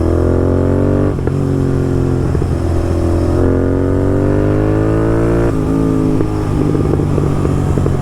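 Royal Enfield Continental GT 650's parallel-twin engine through a loud Red Rooster aftermarket exhaust, accelerating hard. The engine pitch climbs, drops with an upshift about a second in, climbs again and drops once more at about five and a half seconds. Near the end the throttle eases and the exhaust crackles and pops on the overrun.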